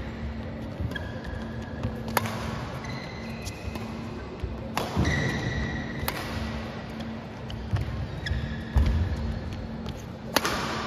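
Badminton rally: sharp cracks of rackets striking the shuttlecock, five or so about a second and a half apart, with short squeaks of court shoes between the hits over a steady low hum.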